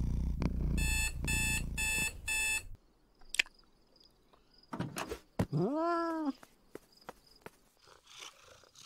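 A cat purrs low while an electronic alarm clock beeps four times, then stops. About six seconds in comes a single cat meow that rises and then falls in pitch.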